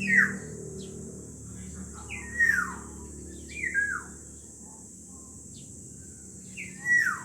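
Black-naped oriole calling: four loud notes spaced irregularly, each a slurred call that slides down in pitch.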